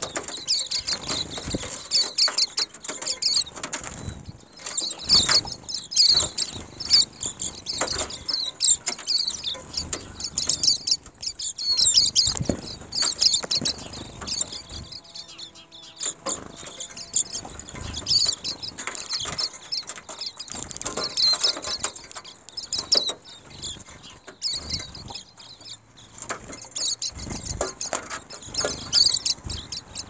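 A flock of silvereyes twittering in many short, high chirps, with repeated bursts of wing fluttering as the birds jostle for places at a feeder.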